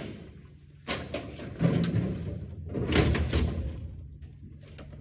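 A few sudden knocks and clattering bangs about a second apart, the loudest about three seconds in, then quieter.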